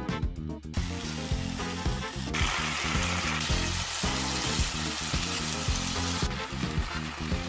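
Spicy marinated chicken (dakgalbi) sizzling as it is stir-fried in a frying pan. The sizzle comes in about a second in, is loudest in the middle and cuts off suddenly about six seconds in. Background music with a steady beat plays throughout.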